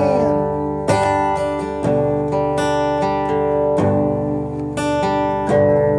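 Acoustic guitar strummed in a steady rhythm, the chords ringing on between strokes.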